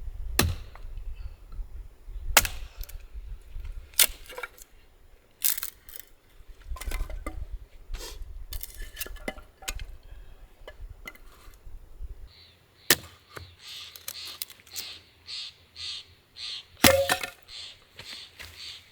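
Sharp cracks and knocks at irregular intervals, the loudest about 2.5, 4 and 17 seconds in. From about 12 seconds in, a quicker, even run of short rasping strokes, about three a second.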